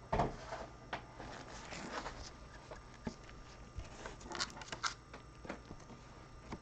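Soft rustling and scattered light clicks of trading cards being handled and sorted, with a few sharper clicks about 4 to 5 seconds in.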